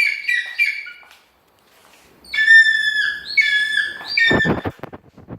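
A bird, called an eagle by its feeders, giving high whistled calls: a quick run of short notes, then, after a short pause, several longer drawn-out calls. A few sharp knocks follow near the end.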